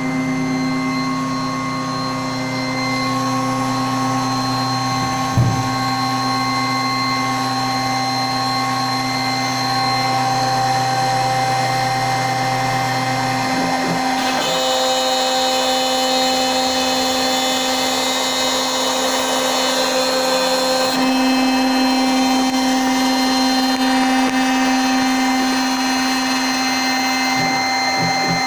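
CNC router running and cutting MDF: a steady machine whine made of several held tones, whose mix of pitches shifts about halfway through and again about two-thirds of the way through as the machine changes its moves. A brief knock about five seconds in.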